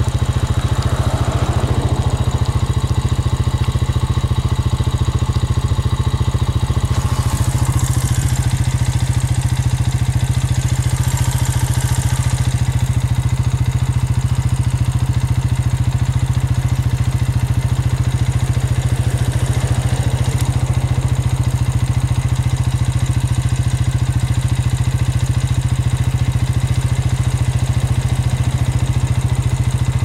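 Vehicle engine idling: a steady, unchanging low hum.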